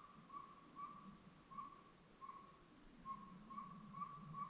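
Owl calling at night: a long, steady run of short whistled toots on one pitch, about two a second, with a brief pause about two seconds in.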